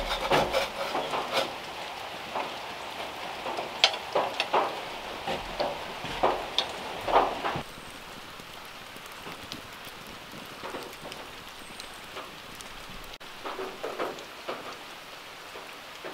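Pancakes sizzling on a hot griddle over a wood fire: a steady hiss with sharp crackles and clicks, busier in the first half and quieter after.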